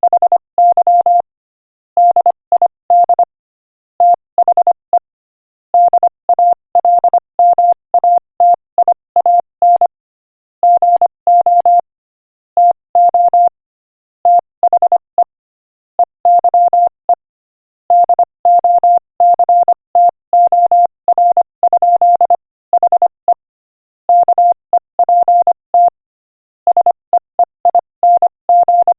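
Morse code sent at 25 words per minute as a single mid-pitched beep tone, keyed into quick dots and dashes grouped into letters and words with short silent gaps between them.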